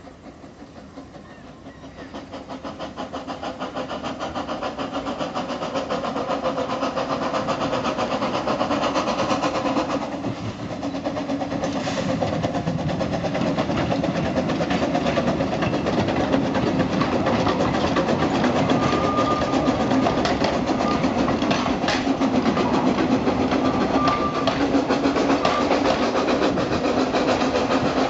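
Kerr Stuart steam locomotive working hard up a grade, its exhaust beating rapidly, with the wooden carriages running behind it. The sound grows louder over the first several seconds as the train approaches and then stays loud as it passes close by.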